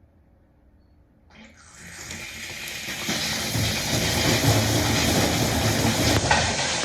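Pressurised water spraying and gushing out of the freshly repaired under-sink supply pipe connection once the water is turned back on: the fitting is leaking. It starts about a second in, builds quickly, then keeps up a loud, steady rush.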